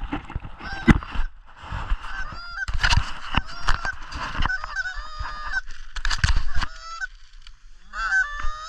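A flock of geese honking, many short calls overlapping, with several louder bursts of calling.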